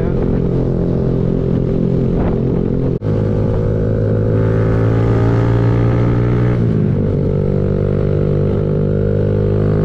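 Kawasaki Z125 Pro's 125cc single-cylinder engine running under way, heard from the rider's seat. There is a brief break about three seconds in. The engine note then climbs slightly and drops in pitch about six and a half seconds in.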